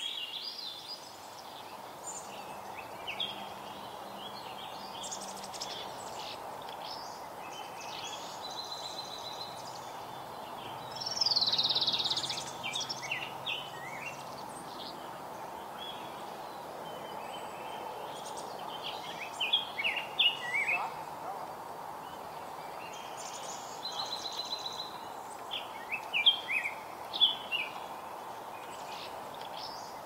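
Several wild songbirds singing and chirping in short varied phrases over steady background noise. The loudest call is a falling sweep about eleven seconds in.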